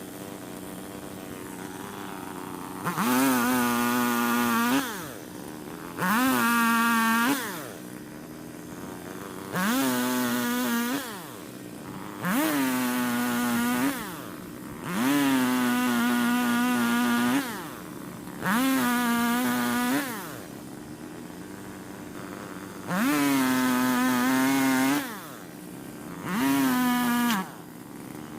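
Chainsaw cutting fallen trees into logs: the engine is revved to full speed eight times, each cut lasting one to two seconds or so, and drops back to a steady idle between cuts.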